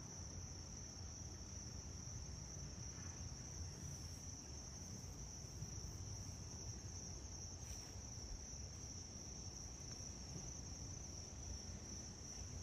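Faint, steady chorus of insects: a continuous high-pitched trill with no break, over a soft low background rumble.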